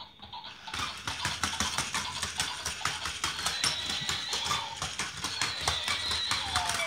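Battery-powered walking toy horse running on a wooden floor: a rapid run of clicks and taps, like hooves, starting about a second in.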